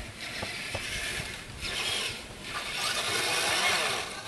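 Radio-controlled monster truck's motor and gears whirring in a few surges of throttle as its wheels churn through snow, with the pitch rising and falling near the end.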